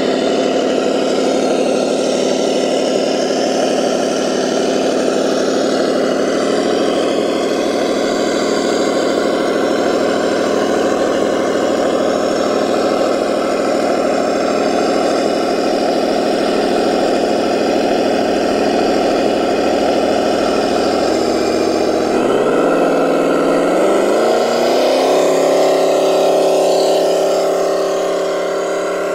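Radio-controlled crawler truck running with a steady engine-like hum of several tones. About 22 seconds in, the pitch climbs over a few seconds and settles at a higher, steady note.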